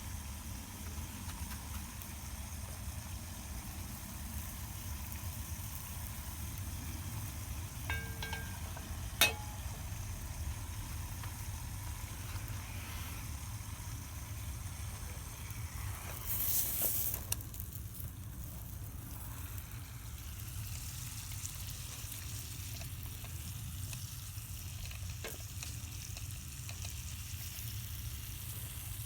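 Food sizzling in a pan over a campfire, a steady frying hiss over a low rumble. A sharp click about nine seconds in and a short louder hiss a little past halfway.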